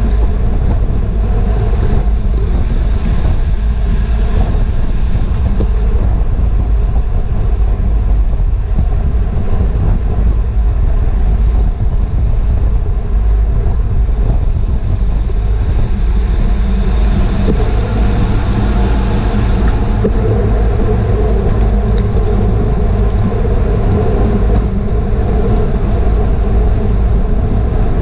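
Steady, loud wind noise rumbling on a GoPro microphone carried on a bicycle at race speed.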